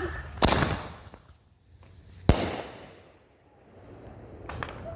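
Consumer fireworks going off: a loud burst about half a second in, then a sharp bang a couple of seconds later that fades over about a second, and a smaller crack near the end.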